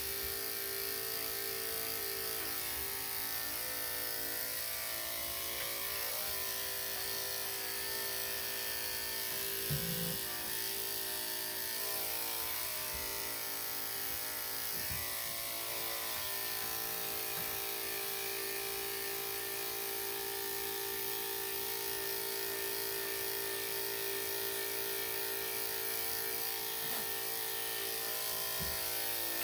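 Electric dog clippers with a #5 blade running steadily, clipping the dog's coat, with a few faint knocks, the clearest about ten seconds in.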